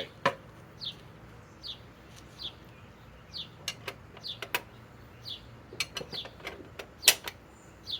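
A bird chirping over and over, one short falling chirp a little under once a second. A few sharp clicks and knocks come in the middle, and a louder click comes near the end.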